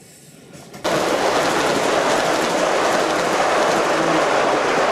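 Gauge 1 model Virgin Pendolino passing close, a loud steady rumble of its wheels running on the track. It starts abruptly about a second in.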